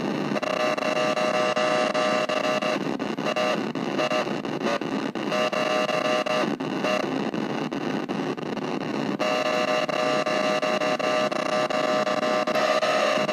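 Nova Drone analog drone synthesizer playing a harsh, noisy drone with several steady high tones over a dense hiss. About three seconds in it turns choppy and broken up, and after about nine seconds the steady tones return.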